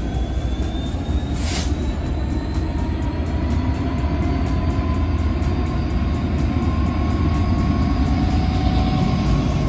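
Train running with a steady heavy rumble and a faint whine that rises slowly in pitch, as when it gathers speed. A short hiss sounds about one and a half seconds in.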